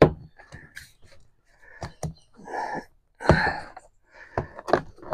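Plastic side panel of an MXR3500 inverter generator housing being worked loose by hand: scattered clicks and knocks of plastic, with a couple of short scraping rasps.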